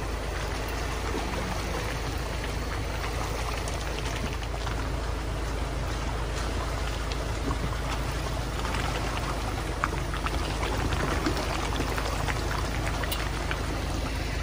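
Lifted Jeep Wrangler JL on 37-inch tyres driving through mud, the tyres churning and flinging wet mud and water against the body in a steady crackling splatter, over a constant low rumble.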